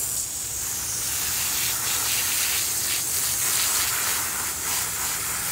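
Garden hose spraying a stream of water onto a dog's wet coat and the grass: a steady hiss.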